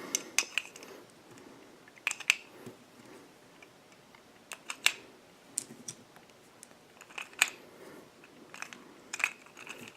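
Scattered sharp small clicks and taps of a speed loader and a Ruger Super Hawk CO2 air revolver being handled as pellets are loaded into the cylinder.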